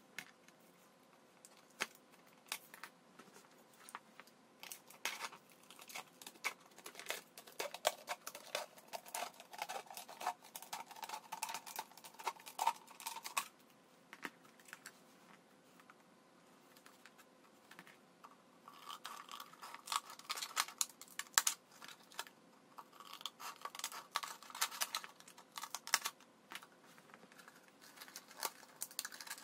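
Thin plastic beer bottle being cut and handled with a utility knife and shears: quick clicking, scraping and crackling of the plastic in two long stretches, with a lull of a few seconds between them.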